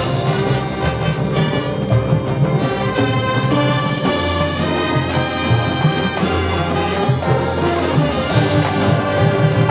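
High school marching band playing, brass-led, with sustained full chords over a steady low accompaniment.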